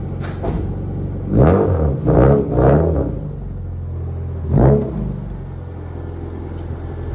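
Car engine idling, blipped on the throttle in three quick revs in a row, then once more a couple of seconds later.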